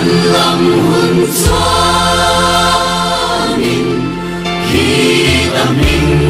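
Gospel choir music: voices singing over steady held chords.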